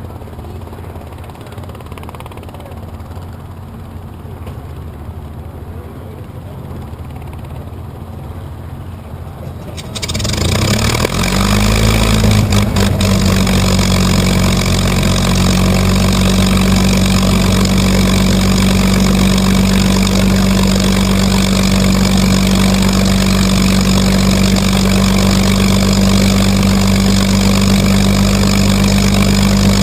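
P-51 Mustang's Packard Merlin V-12 engine starting: after about ten seconds of low rumble it fires, its pitch sweeps up briefly with a few sharp pops, then it settles into a loud, steady idle.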